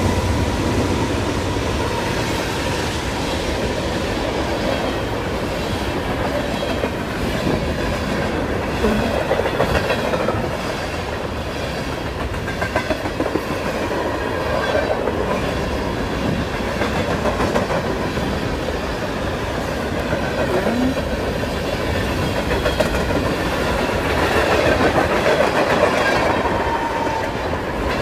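Freight train rolling past at close range, its wheels clacking steadily over the rail joints, with a faint wheel squeal at the start.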